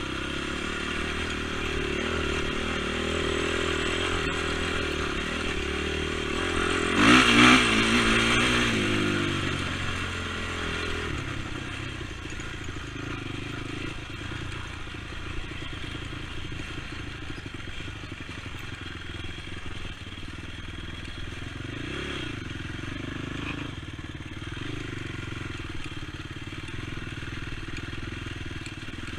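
Honda TRX450 sport quad's single-cylinder four-stroke engine running as it is ridden, revving hard and loudest about seven seconds in, then settling back to a steadier, lower run.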